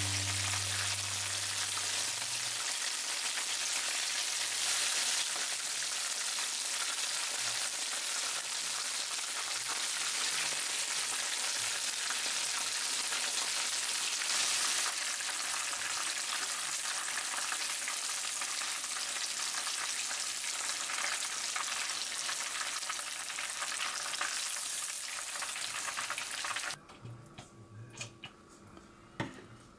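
Battered skate-wing (kasube) karaage deep-frying in hot oil in a frying pan, a steady sizzle as the pieces are turned with chopsticks. The sizzle cuts off about 27 seconds in, leaving only a few faint clicks.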